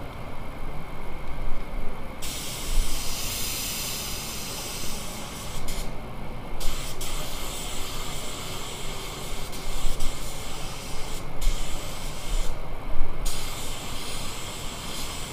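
Air spray gun spraying paint in passes: a strong hiss starts about two seconds in and is cut off four times as the trigger is released, twice briefly and twice for about half a second. A steady low rumble runs underneath.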